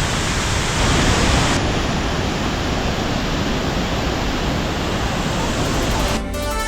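Waterfall in heavy flow: a loud, steady rush of falling water. Music comes in about six seconds in.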